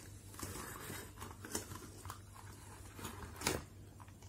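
Handling noise of plastic LED bulbs and a socket strip: light clicks, knocks and rubbing, the loudest knock about three and a half seconds in, over a steady low hum.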